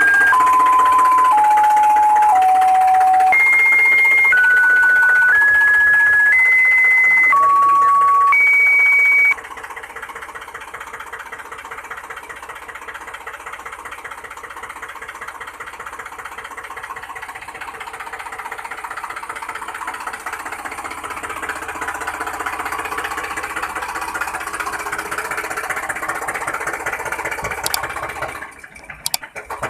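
A run of single electronic beep tones, about one a second and changing pitch like a simple tune. It stops about nine seconds in and gives way to a small toy motor whirring with a fine gear rattle, which grows louder and then cuts off near the end.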